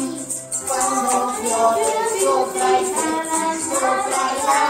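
Voices of adults and children singing a song together, with maracas shaken on a steady beat.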